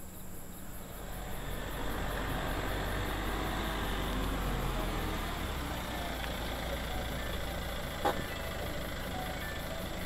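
Toyota Yaris hatchback driving up and pulling to a stop, its engine and tyre noise swelling as it approaches and then easing off into a steady idle. A single sharp click about eight seconds in.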